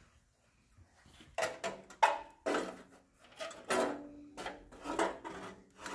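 Metal parts of a toy stove clanking and scraping as they are handled and fitted together: a run of sharp knocks with brief metallic ringing, starting about a second and a half in, the loudest about two seconds in.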